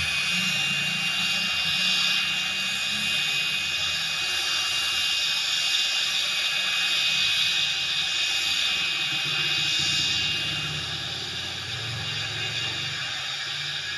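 Cessna 680 Citation Sovereign's twin Pratt & Whitney Canada PW306C turbofans running at low thrust as the business jet taxis, a steady high whine over an even rush of engine noise.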